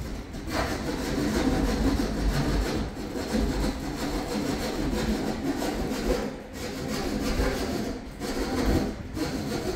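A hand saw cutting into a ceiling board overhead, a continuous rough rasping that runs stroke after stroke without a break, to open the hole for a bathroom exhaust fan.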